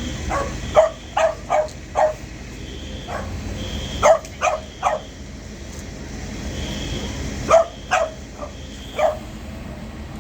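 A dog barking in short bursts: a quick run of about five barks, then three about four seconds in, then four more near the end. Under it a faint high-pitched fire alarm tone sounds on and off.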